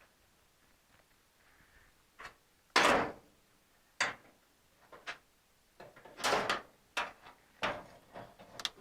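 A series of short knocks and rattles from tools and metal parts being handled, about eight in all, the loudest about three seconds in.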